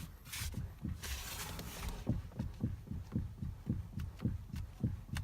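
Rhythmic low knocking, about four knocks a second, from a Toyota Avensis's front end as the steering wheel is turned.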